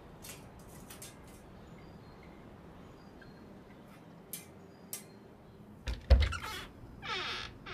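Wooden double door being worked open: a few small clicks of the latch and bolt, then a heavy thud about six seconds in as the door is shoved, followed by a wavering creak from the hinges.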